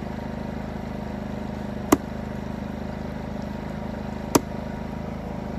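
Two sharp knocks, about two and a half seconds apart, of a knife blade chopping down onto a wooden log while small game is being cut up. A steady motor hum runs underneath.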